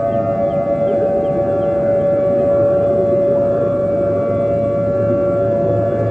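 Civil defense siren sounding a loud steady tone at one held pitch.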